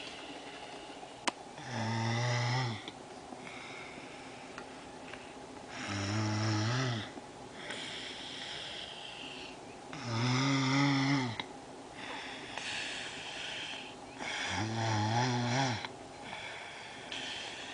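A sleeping man snoring: four loud, rattling snores about four seconds apart, with a quieter breathy out-breath between each.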